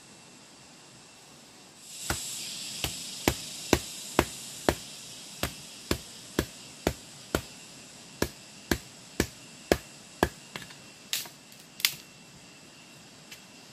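Machete chopping into a bamboo pole on the ground: a steady run of sharp strikes about two a second for some eight seconds, then a few lighter, uneven cuts before it stops.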